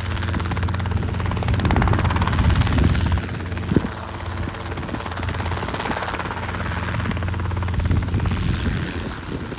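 Helicopter hovering, its rotor and engine running steadily with a deep rhythmic hum, swelling a little about two seconds in. A short knock sounds just before four seconds in.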